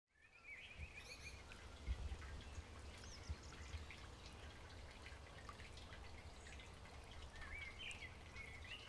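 Faint outdoor ambience that fades in at the start: scattered bird chirps, a short trill and a few rising-falling whistles over a low rumble.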